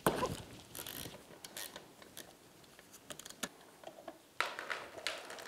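Socket ratchet clicking in short irregular runs as the oil drain bolt is backed out of an outboard motor, with a couple of louder metallic rattles about four and a half seconds in.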